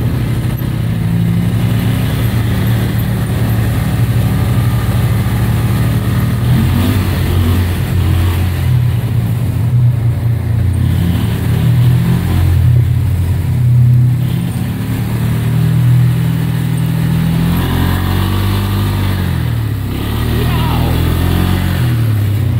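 ATV engine running under way, heard from the rider's seat, its revs rising and falling several times as the throttle is worked, most clearly in the second half.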